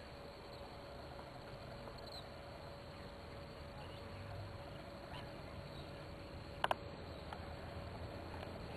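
Faint ticking of an echidna lapping up water, over a steady hiss and hum, with a sharp double click about two-thirds of the way through.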